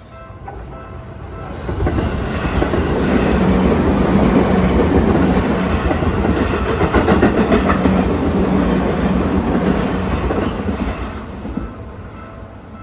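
A Seibu 30000 series electric commuter train passing close by at a level crossing. The sound of its wheels on the rails builds over about two seconds, stays loud with the wheels clattering over the rail joints for several seconds, then fades away near the end.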